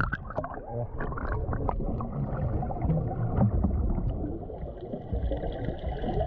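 Underwater sound picked up by a submerged camera in the sea: a steady, muffled low rumble of moving water, with short clicks from air bubbles in the first two seconds.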